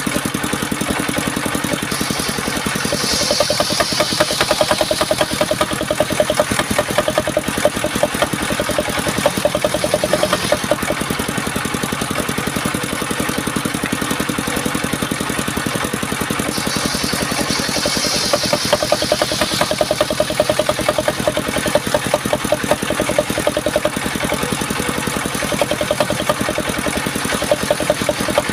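Engine-driven home-built circular saw running steadily with a rapid, even engine pulse. Twice, about three seconds in and again around seventeen seconds, a higher hiss rises over it for about three seconds as the blade cuts through the wood.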